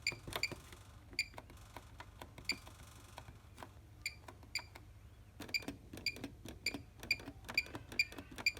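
Short, high beeping clicks from a Bosch HomeProfessional washing machine's control panel, one for each setting as the options are stepped through. They are scattered at first, then come quickly, two or three a second, over the last three seconds.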